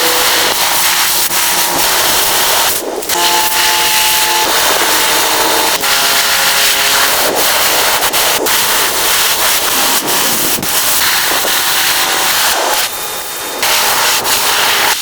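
Loud hissing and scraping workshop noise in quick, abrupt cuts, with short whining tones from tools coming and going.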